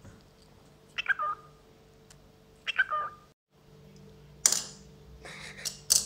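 Pet cockatiel giving two short calls about a second and a half apart. After a brief break, sharp scratchy, hissy noises follow, with more bird sounds among them.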